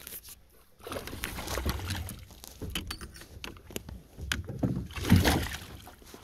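A hooked northern pike thrashing and splashing at the surface beside a kayak as it is reeled in, with water sloshing and scattered sharp clicks and knocks; the loudest splash comes about five seconds in.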